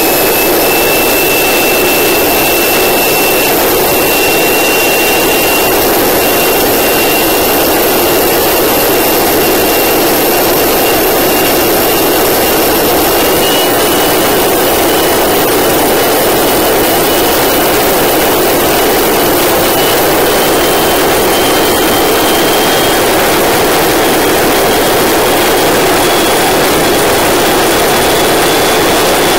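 Gas-turbine jet boat running at high speed: a loud, steady rush with a thin turbine whine that creeps slowly up in pitch.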